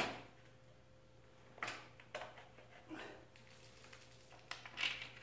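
Hand-work clicks and light knocks of plastic and metal parts as a radiator fan shroud and its bolts are fitted onto a new radiator: about six short, separate sounds, the loudest right at the start.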